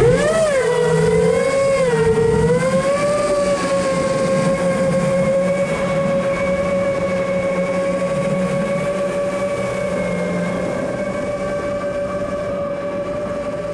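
Chimera 7 Pro 7-inch FPV quadcopter's brushless motors and propellers whining in flight. The pitch climbs sharply at the start, wobbles for a few seconds as the throttle changes, then holds a steady whine, with wind noise underneath.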